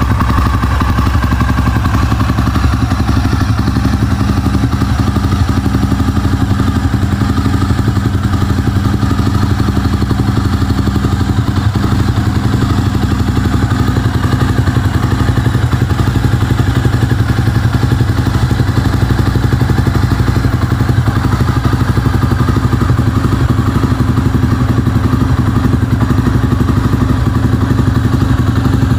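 Honda air-cooled single-cylinder motorcycle engine idling steadily through a chrome aftermarket muffler.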